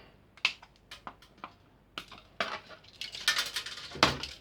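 Metallic clicks and clinks of a small aluminium heatsink being worked loose from a PC board, scattered at first and coming thick and fast near the end, with a heavier knock about four seconds in.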